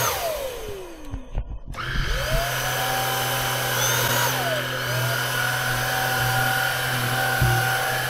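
Greenote GSC50 cordless stick vacuum's motor whining on stair carpet. Its pitch falls away in the first second and drops out briefly, then climbs back and runs steady, dipping once more near the middle. The motor is easing off on the backward stroke and powering up going forward, for maximum pickup.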